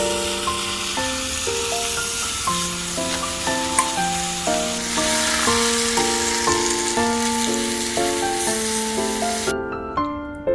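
Sizzling hiss as tteokbokki sauce and then water go into the hot waffle-maker bowl with the rice cakes and fish cake, over background keyboard music. The sizzle grows a little brighter about halfway through and cuts off suddenly about a second before the end, leaving only the music.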